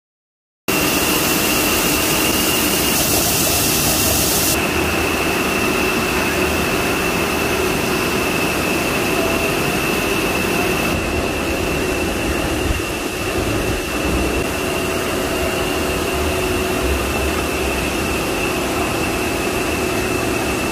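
PP/PE thick-sheet extrusion line running: loud, steady machinery noise with a constant high whine and a lower hum, cutting in abruptly just under a second in.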